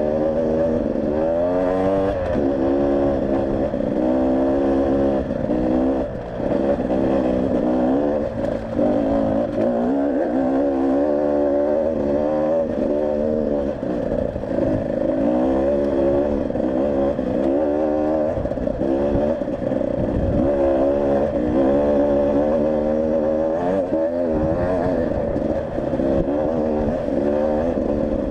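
Enduro motorcycle engine under riding load, its pitch climbing and dropping over and over every second or two as the throttle is worked on and off.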